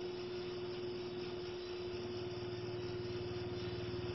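Steady room noise: a constant hum with hiss, joined from about halfway by a low, rapidly pulsing engine-like drone that grows louder.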